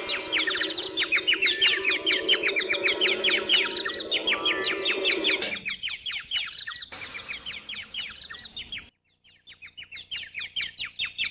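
Sound Ideas cartoon 'head bonk' birds chirping effect: rapid, high twittering chirps several times a second, the stock sound of a cartoon character dazed by a blow to the head. It breaks off briefly about nine seconds in and starts again. A low steady tone runs under the chirps in the first half.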